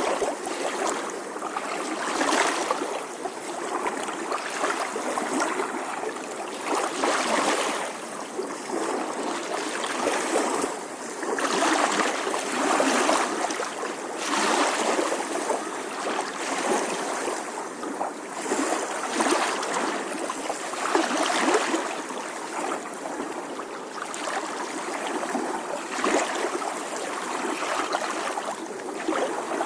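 Small ocean waves lapping on a shore: a continuous wash of water that swells and eases every couple of seconds, each lap washing in and draining back.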